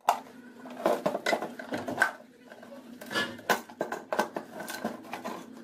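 Plastic housing of a National juicer-blender being pried open with a screwdriver along its seam: irregular clicks, knocks and scrapes of plastic as the bottom cover is worked loose.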